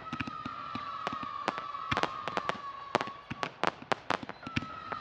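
Fireworks display: a rapid, irregular run of bangs and crackles from bursting shells and comets, over a long whistle that glides slowly down in pitch for about three seconds. A second whistle starts near the end.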